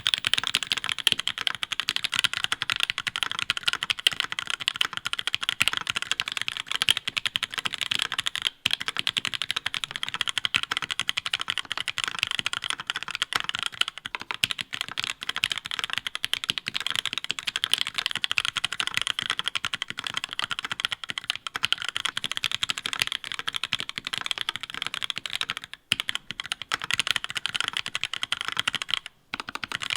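Mechanical keyboard with aftermarket keycaps being typed on fast and continuously: a dense stream of key clacks, broken by short pauses near the 9-second mark, again about 26 seconds in, and briefly just before the end.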